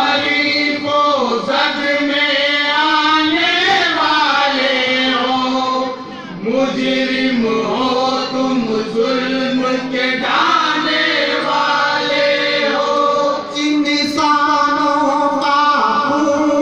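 A man singing a devotional Urdu kalam into a stage microphone, a chanted melody of long held notes that bend up and down, with a short break about six seconds in.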